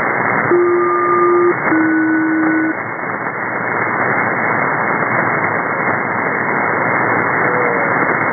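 Shortwave receiver in upper-sideband mode on an aeronautical HF channel, giving steady static hiss. About half a second in comes a SELCAL call: two one-second pulses, each a low and a high tone sounding together, with a short gap between them. A faint short falling whistle comes near the end.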